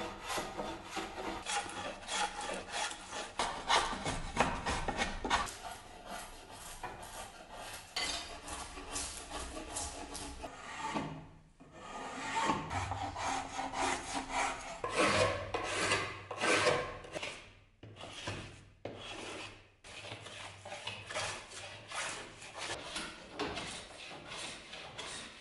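Hand tools shaving wood in quick repeated scraping strokes, a hand plane taking long shavings off a board, with brief pauses between runs of strokes.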